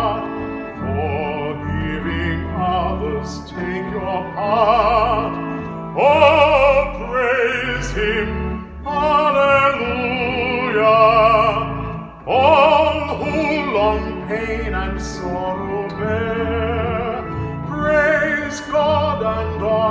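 A man singing in a trained, operatic voice with wide vibrato, accompanying himself on the church organ, whose sustained chords hold steady beneath the voice.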